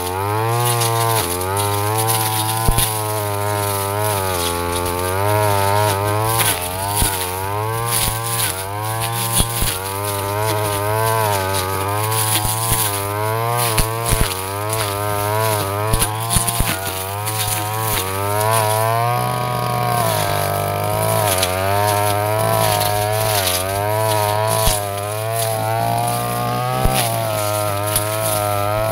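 Backpack brush cutter engine running hard, its pitch swinging up and down again and again as the Stamvick blade bites into thick grass and ferns. Scattered sharp ticks come from stalks and debris striking the blade.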